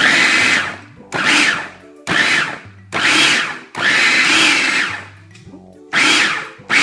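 Hamilton Beach food processor pulsed in short bursts, its blade chopping raw cauliflower into rice-sized pieces. About seven pulses, the motor whirring up and winding down each time, one longer pulse in the middle and a gap of about a second before the last two.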